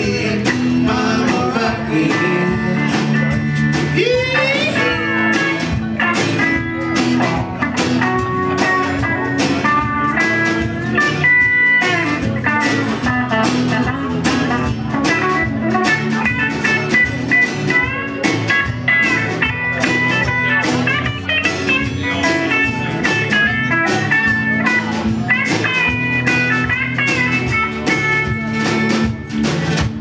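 Live country-rock band playing an instrumental stretch: a lead electric guitar with bent, sliding notes over steady drums, bass and rhythm guitar. One long upward slide comes about four seconds in.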